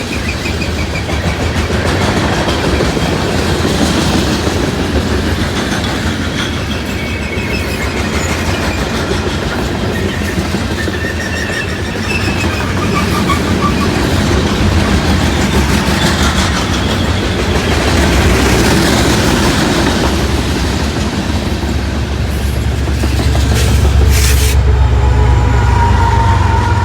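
Loaded coal train cars rolling past steadily, wheels clicking over the rail joints with faint, intermittent wheel squeal. A heavier low rumble builds near the end.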